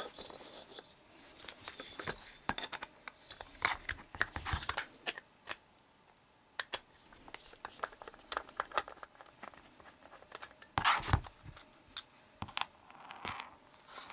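Screwdriver turning out the screws of a plastic chalk line box: scattered clicks, scrapes and rattles of the metal bit and the plastic case, with a sharper knock about eleven seconds in.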